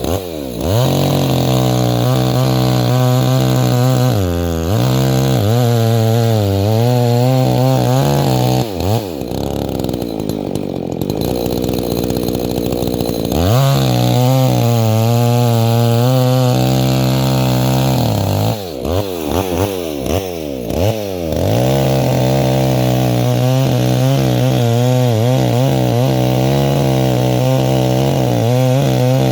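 Two-stroke chainsaw running at high revs while cutting into a tree, its pitch sagging as it bogs under load in the cut for a few seconds about a third of the way in, and dipping and picking up again several times about two-thirds in.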